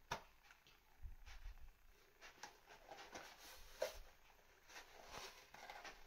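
Faint handling sounds of a plastic milk jug turned in the hands, with light rustles and a couple of sharp clicks, one right at the start and another about four seconds in, as a yarn needle and string are worked through a small hole in it.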